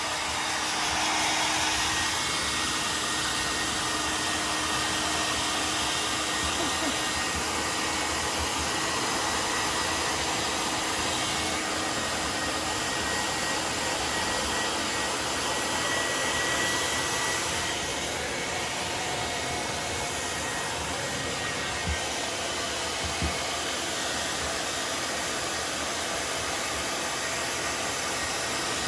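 Handheld hair dryer blowing steadily, its airflow a constant hiss with a faint steady whine, as it dries a dog's fur. A couple of small knocks come near the end.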